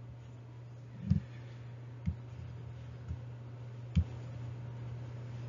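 Four soft taps of a stylus on a tablet while handwriting, about a second apart, over a steady low hum.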